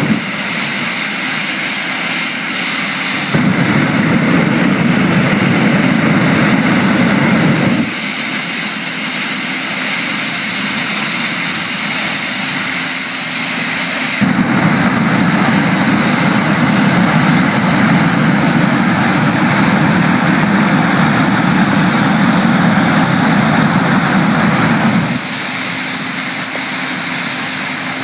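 Jet engine of a jet-powered classic Mini running, with a steady high-pitched turbine whine. A deeper rushing blast swells in twice as the jet is opened up, first for about four seconds, then for about eleven seconds.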